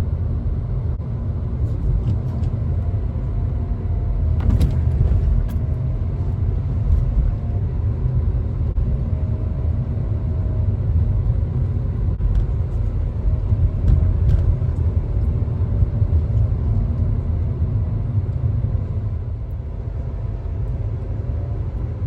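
Car driving: a steady low rumble of road and engine noise, with a faint hum that drifts slightly in pitch and a single brief click about four and a half seconds in.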